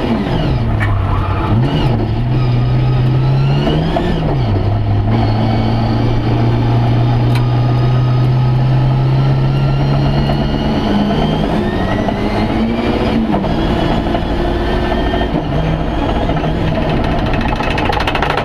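Rally car engine heard from inside the stripped cabin under hard driving. The revs drop and climb several times through gear changes in the first few seconds, then hold steady for several seconds, and rise and fall again about two-thirds of the way in.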